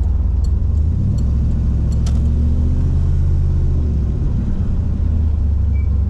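Turbocharged 408 LS V8 running under light throttle while the car is driving, heard from inside the cabin as a steady low drone. The engine note rises a little about a second in and eases off again near the middle.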